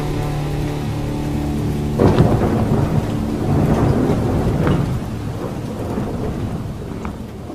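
A thunderstorm with steady rain. About two seconds in, a clap of thunder breaks and rumbles on with a few sharper cracks, slowly dying away.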